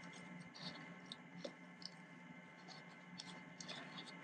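Faint, scattered rustling and light scratching of glittered organdy ribbon against a cardstock box as a bow is tied by hand, over a steady low hum.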